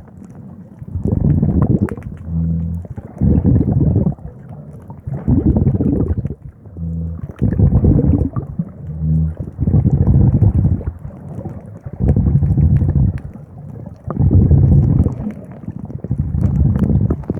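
Heavy rhythmic breathing through a snorkel, heard muffled through the water, with gurgling. It comes in surges of about a second each, every one to two seconds.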